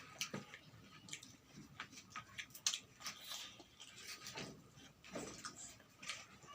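Chewing and eating sounds close to the microphone: irregular wet smacks and clicks from mouths and food.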